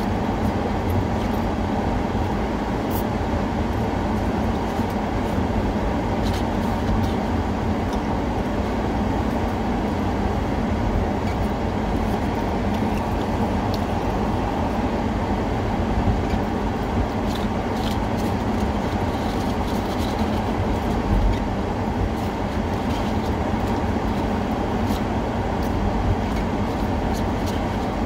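Steady rumble of a moving vehicle, with a few faint clicks and rattles scattered through it.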